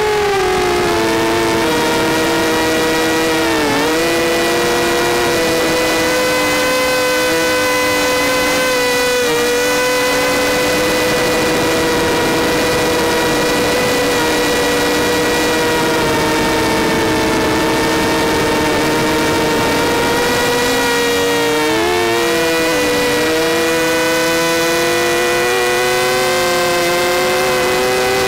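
Vortex racing quadcopter's motors and propellers whining in flight, heard close up from on board. The whine is a steady chord of several tones, and its pitch dips briefly and recovers a few times as the throttle changes.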